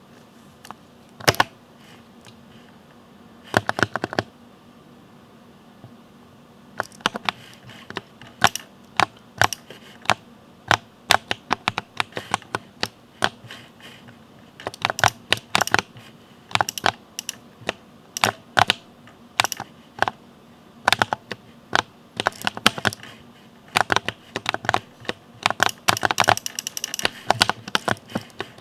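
Typing on a mechanical keyboard: irregular key clicks, a few isolated keystrokes and short runs at first, then steady typing from about seven seconds in.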